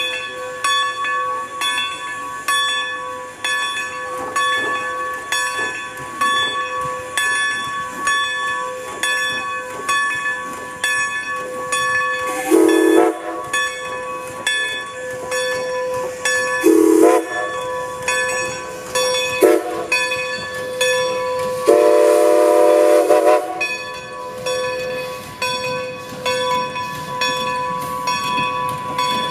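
Steam locomotive running with a steady, rhythmic beat about twice a second over a continuous high ringing tone. From about the middle its chime whistle sounds four blasts: three short ones, then a longer one.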